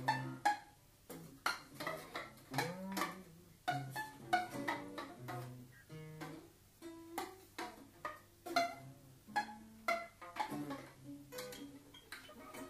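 Free-improvised acoustic music: a busy string of short, sharply attacked pitched notes, several a second, with a few low notes bending in pitch.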